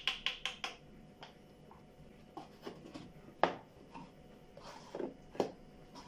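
A small plastic measuring spoon tapped in a quick run of light clicks, about eight a second, as powder is shaken off it onto a clay dish. This is followed by scattered light clicks and knocks of a plastic tub being handled and set down on a stone counter.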